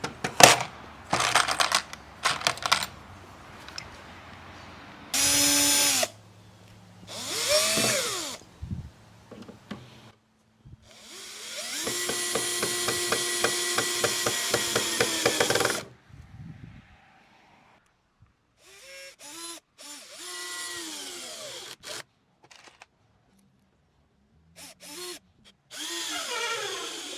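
Cordless drill/driver driving screws into 2x4 lumber in a series of short runs, the motor whine rising as it spins up and dropping as it slows. One longer run of about five seconds, near the middle, carries a rapid regular ticking; clicks and knocks of handling fall between the runs.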